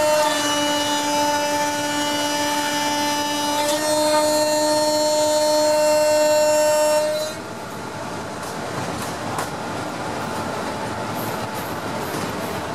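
WAP-4 electric locomotive's horn sounding one long continuous blast for about seven seconds, shifting note slightly partway through, then cutting off abruptly. The steady rumble and wheel clatter of the passing train follows.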